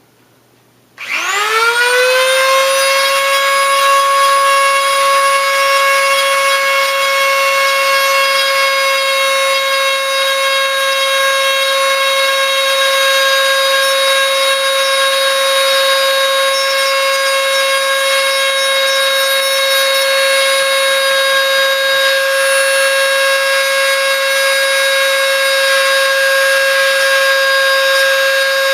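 Dremel rotary tool switched on about a second in, spinning up with a rising whine, then running at a steady high speed with a loud, even whine while grinding epoxy off a connector.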